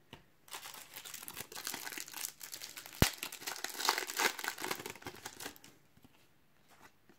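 Foil wrapper of a Panini trading-card sachet crinkling in the hands as it is torn open, with one sharp snap about three seconds in.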